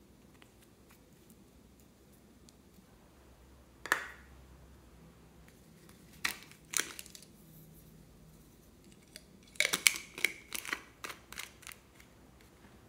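Sharp plastic clicks and taps as small plastic cosmetic bottles and their caps are handled: one click, then two, then a quick run of them near the end with a short squeak among them.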